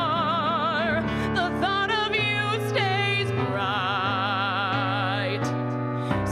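A woman singing solo, holding long notes with a wide vibrato and moving between a few pitches, over sustained keyboard chords.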